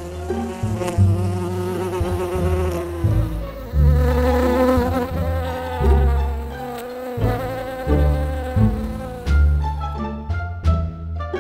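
Buzzing bee sound effect for an animated bee in flight. The buzzing drone wavers in pitch over a pulsing low rumble. About two seconds before the end, sharp percussive hits come in.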